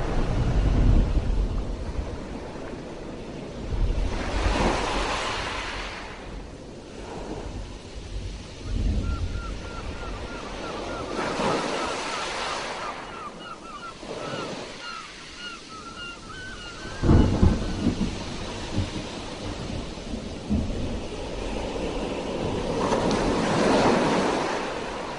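Sea waves breaking and washing in, swelling and fading in repeated surges every few seconds, with low rumbling at the strongest breaks. A run of quick high chirps sounds in the middle.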